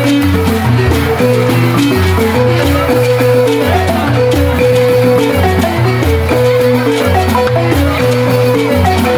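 Senufo balafon playing a fast, repeating melodic pattern over low, booming bass notes, with rattling high percussion throughout.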